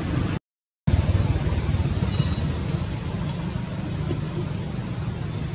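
Steady low outdoor rumble, like wind on the microphone or distant traffic, broken by a half-second dropout to silence about half a second in.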